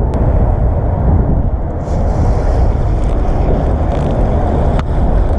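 Boat running on the river: a steady, loud rumble of the boat's motor and water, with wind buffeting the microphone.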